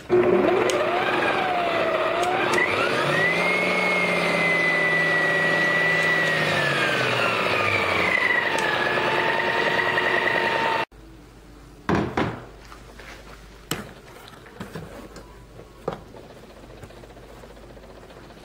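Electric stand mixer beating cake batter at medium speed. The motor whine rises in pitch as it spins up, holds steady, then sinks, and stops abruptly about eleven seconds in. A few soft knocks and clunks of bowl handling follow.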